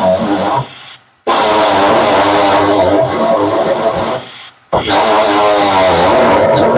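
Pneumatic jigsaw with a small metal-cutting blade sawing through a pickup's sheet-steel bed floor, its air motor running loud with a wavering pitch. It stops briefly about a second in and again just past four seconds, then starts up again each time.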